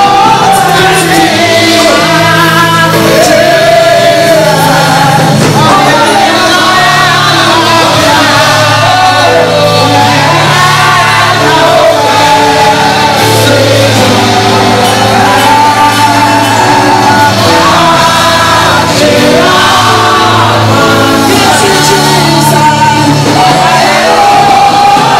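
A congregation singing loudly in worship over music, with held bass notes changing every second or two under the voices.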